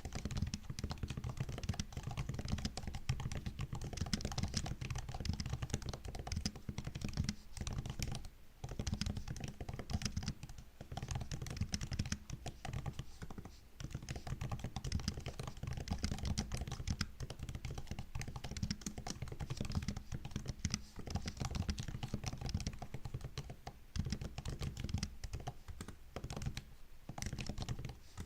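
Continuous typing on a MacBook laptop keyboard: a dense stream of soft key clicks and taps, with a few brief pauses.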